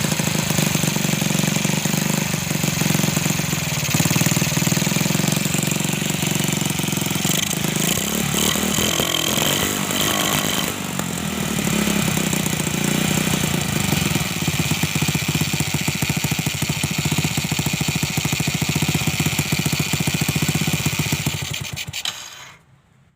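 A horn relay in a home-built CDI circuit buzzing steadily and very fast, its contacts chattering as they switch the circuit. The buzz fades out near the end.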